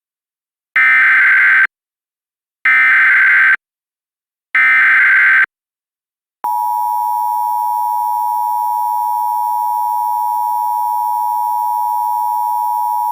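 Emergency Alert System tones for a tornado warning: three short bursts of SAME header data tones, a second or so each, then after a pause the steady two-tone EAS attention signal (853 and 960 Hz), which starts about six seconds in.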